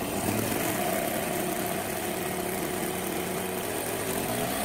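Semto NF2 miniature model engine running steadily at idle, an even mechanical hum that holds without change.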